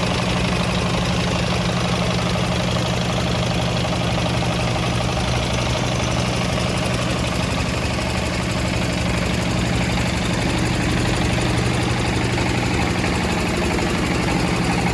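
Engine of an Isuzu 100P double-cab aerial platform truck idling steadily, an even low hum that holds the same speed throughout.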